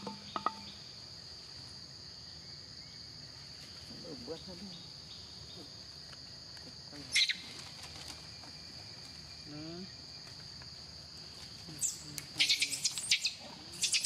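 Steady high-pitched drone of an insect chorus, with a couple of faint low murmurs. Sharp crackling clicks come once about halfway through and in a quick cluster near the end.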